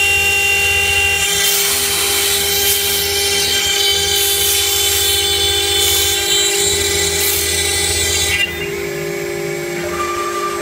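STYLECNC STM1325 CNC router spindle running at high speed, its bit cutting a slot through aluminum composite panel: a steady high whine with harsh cutting noise over it. The cutting noise eases somewhat about eight and a half seconds in.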